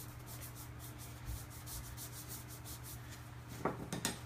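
Dry brush rubbing cocoa powder over fondant in quick, repeated scratchy strokes, with a couple of light knocks near the end.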